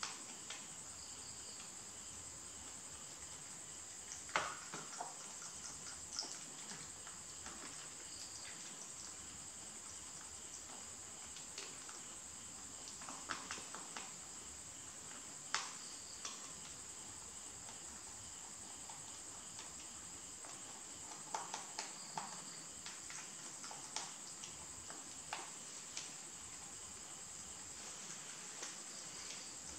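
Quiet scene with a steady high-pitched chirring and about a dozen soft, scattered clicks and taps as rabbits shift about on a tiled floor beside a plastic food dish; the sharpest tap comes about four seconds in, with a cluster of clicks around twenty-one seconds.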